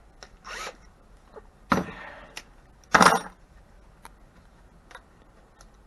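Salvaged microwave parts being handled and set down on a work surface: three louder metallic knocks and clinks about a second apart, with light ticks between.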